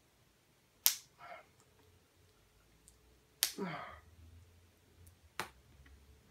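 Blu-ray set's packaging being handled and opened: about three sharp snaps, the first two each followed by a brief crinkling rustle.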